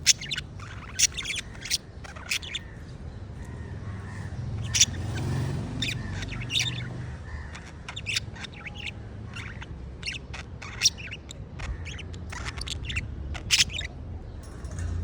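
Birds calling: many short, sharp squawks and chirps at irregular intervals, over a low steady rumble.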